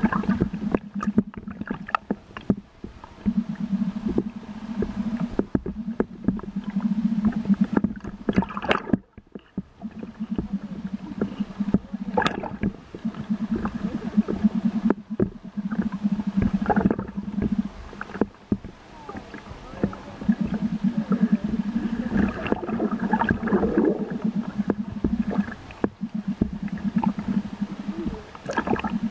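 Scuba diver breathing through a regulator underwater: the exhaled bubbles rumble and gurgle in bursts of a few seconds each, separated by short pauses for the inhale, with scattered crackling and clicks.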